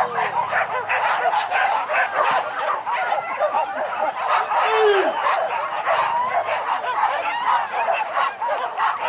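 A pack of hunting dogs barking and yelping without a break, many dogs' voices overlapping.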